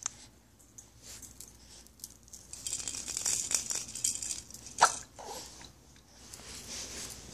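A rattling, shaking noise for about two seconds, then a single sharp hiccup about five seconds in, followed by a softer catch of breath.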